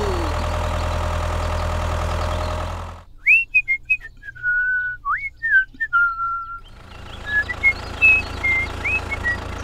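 A steady engine drone with a strong low hum runs for about three seconds, then cuts off abruptly. A person whistles a short tune after it: clear high notes with quick upward slides, some held, while the drone comes back faintly under the last few seconds.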